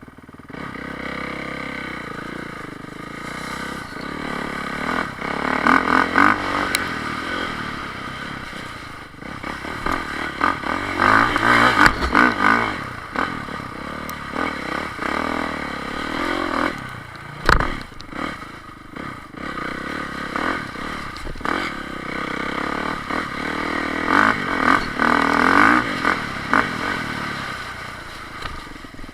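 Enduro off-road motorcycle engines revving in repeated surges, rising and falling as bikes pass, with two sharp knocks partway through.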